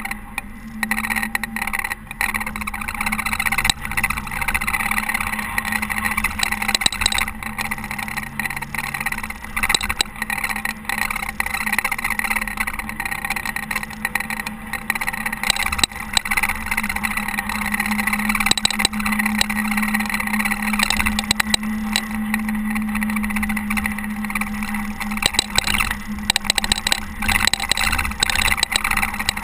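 Caterpillar TH330B telehandler's diesel engine running steadily while plowing snow, with frequent knocks and rattles over the engine sound.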